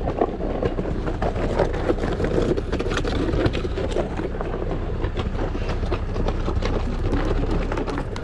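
A vehicle's steady low engine rumble with a constant stream of small rattles and knocks.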